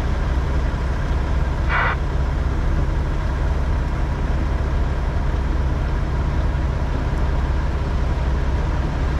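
Semi truck's engine and road noise droning steadily, heard from inside the cab, with one short hiss-like burst about two seconds in.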